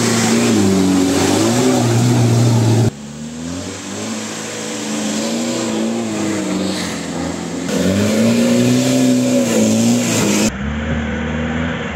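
Mahindra off-road 4x4 engines revving hard, the pitch rising and falling as the throttle is blipped. The sound jumps abruptly from one engine to another about three, eight and ten and a half seconds in.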